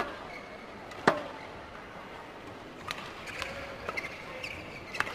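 Badminton rackets striking a shuttlecock: two sharp smacks about a second apart, the second the loudest, then a few lighter taps.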